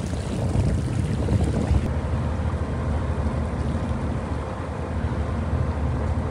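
Boat's engine running steadily under way, a low hum mixed with the rush of water past the hull and wind on the microphone.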